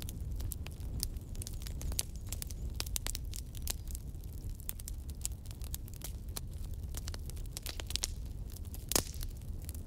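Irregular crackles and pops over a steady low hum, with one stronger pop near the end.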